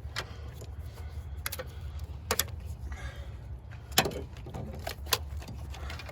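A series of sharp clicks and light knocks, about half a dozen spread out, the loudest about four seconds in, from spark plug wire boots and parts being handled and snapped on in a car's engine bay, over a steady low rumble.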